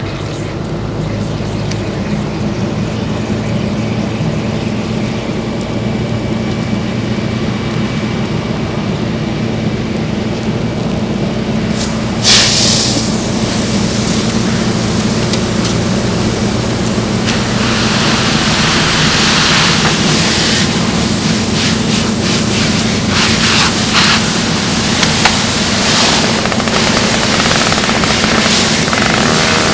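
A fire hose opens with a sudden rush about twelve seconds in. Water then sprays onto a burning car with a loud, surging hiss as steam rises. A steady engine drone runs underneath, with the car fire burning before the water starts.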